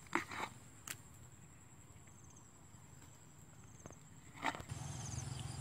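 Hands digging in wet mud and grass, a few short scrapes and squelches with a sharper click about a second in and another scrape near the end. A low steady rumble builds up over the last second.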